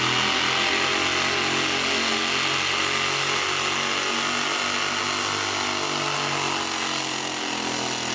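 Super-modified four-wheel-drive pulling truck's engine running at full throttle with a steady high drone as it drags the pulling sled; it eases a little from about six and a half seconds in.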